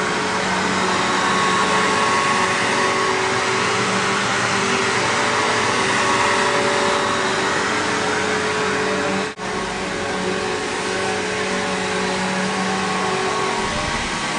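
Bissell PowerGlide Platinum upright vacuum cleaner running steadily: the motor whines under a loud rush of air. The sound drops out for an instant about nine seconds in.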